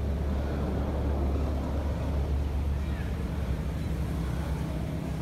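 Low, steady engine-like rumble that eases a little about three seconds in.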